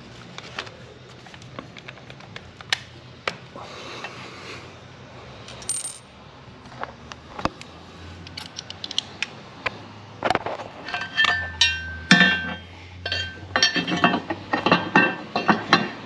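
Metal parts clinking as bolts and a metal intake grate are handled and fitted to a jet ski hull: scattered sharp clicks at first, then from about ten seconds in a busy run of ringing metallic clinks.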